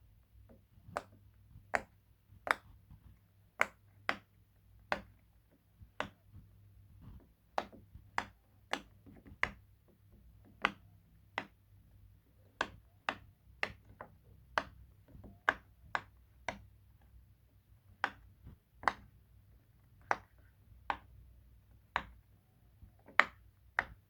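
A puppet clicking: sharp single clicks with a short ring after each, repeated at uneven intervals of roughly half a second to a second and a half, about two dozen in all.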